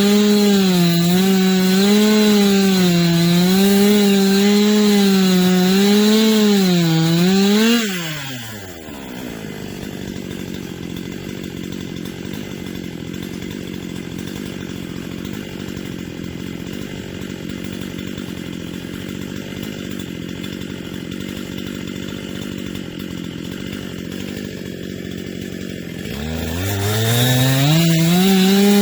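Chainsaw engine running at full throttle with its pitch wavering up and down as it cuts, dropping to idle about eight seconds in, idling steadily, then revved back up near the end.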